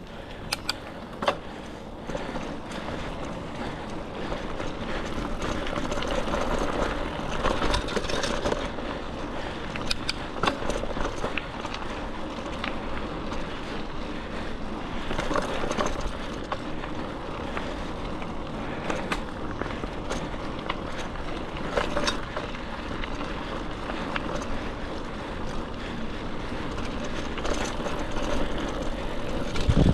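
Mountain bike riding over a dirt trail: steady tyre and rolling noise with frequent sharp knocks and rattles as it hits bumps.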